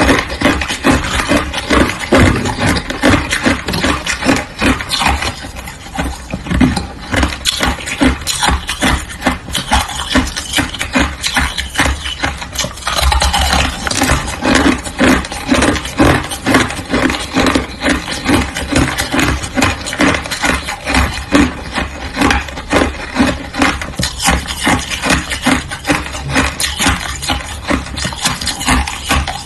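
Mouthfuls of hard shaved ice being bitten and chewed: dense, continuous crunching with many sharp crackles a second.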